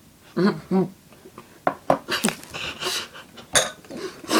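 Coughing and gasping from people choking on a mouthful of dry ground cinnamon, with short vocal groans. The coughs come as a run of sharp bursts in the middle, with a hard single cough a little after three seconds in.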